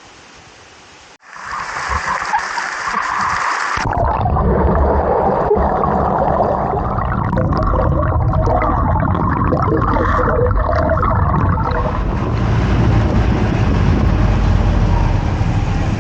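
Loud rushing river water, with heavy low rumble of wind on the microphone. The sound jumps up abruptly about a second in, and again at about four seconds as the shot changes.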